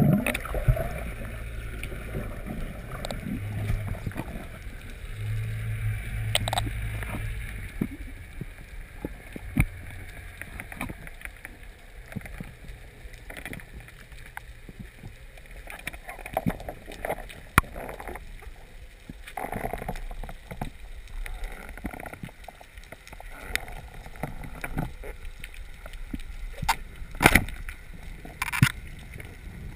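Underwater sound picked up through a camera's waterproof housing as it moves through the water over a reef: a muffled wash of water, scattered sharp clicks, and a low hum for the first eight seconds or so.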